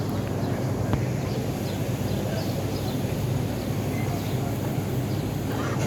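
Steady background rumble and low hum, with faint high chirps scattered through it and a single click about a second in.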